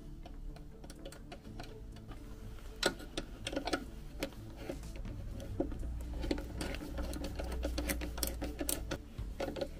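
Socket ratchet clicking in short, irregular runs as it tightens the nut on a battery cable lug at an inverter's 12 V DC terminal, with a low hum underneath.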